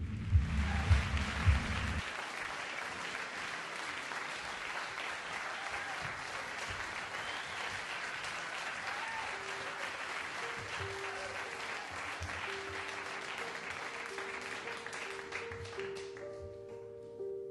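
Audience applause from a live concert recording: dense, steady clapping that dies away near the end. About halfway through, long held instrument notes come in and carry on as the clapping fades.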